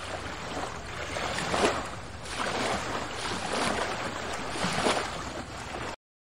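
Sea surf rushing in and easing back, swelling several times over a low steady rumble, then cutting off abruptly near the end.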